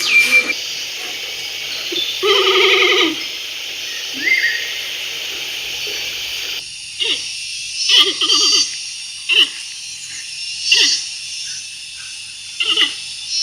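Animal calls: one drawn-out pitched call about two seconds in, then a string of short calls every second or two in the second half.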